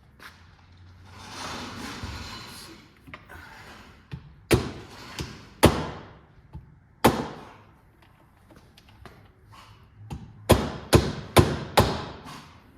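Rubber mallet striking a small socket held on the Fox 40 fork's damper pin to knock it free. There are three spaced blows, then a quick run of four, after some handling noise.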